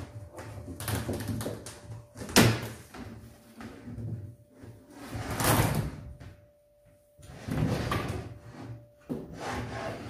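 Plastic window-kit panel of a Midea portable air conditioner being worked into a sliding window frame: plastic scraping, sliding and knocking against the frame, with one sharp knock about two and a half seconds in.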